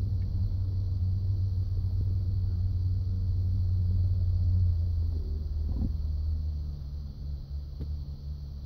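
Ford F-150 giving a low, steady rumbling grind that eases and wavers about five seconds in. This is the kind of grinding the owner hears when turning the steering wheel, worse when the truck is cold.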